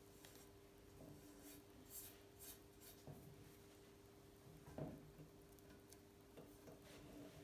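Faint scratching and rubbing of masking tape being worked off a freshly painted bicycle frame, with a soft knock about five seconds in and a steady low hum underneath.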